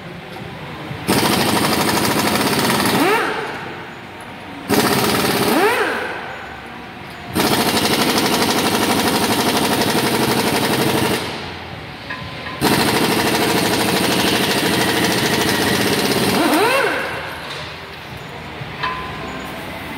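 Pneumatic impact wrench hammering the wheel bolts loose, in four long bursts of rapid hammering with short pauses between them, where the tool's motor briefly whines up or down in pitch.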